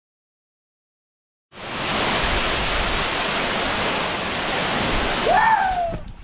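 Waterfall rushing with a steady, even noise of falling water. It cuts in suddenly after a second and a half of silence. A short call that rises and then falls in pitch sounds near the end.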